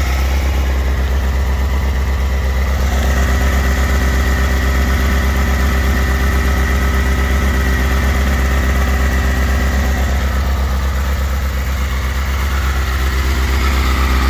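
2006 Suzuki GSX-R600's inline-four engine idling steadily through a Hindle full exhaust system, warming up after a cold start.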